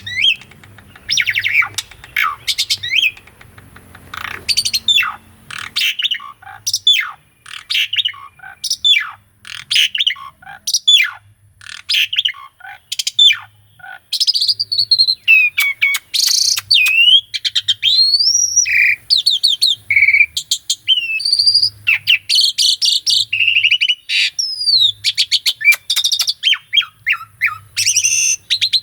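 Asian pied starling (jalak suren) singing a long, varied song: a string of quick falling whistles, then warbling phrases mixed with swooping whistles and fast trills.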